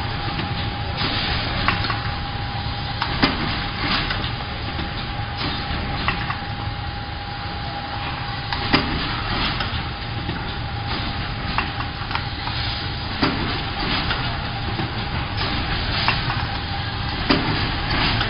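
Automatic rigid-box making machine running: a steady mechanical hum with a continuous whine, broken by sharp clacks at irregular intervals of a second or two as it forms the box trays.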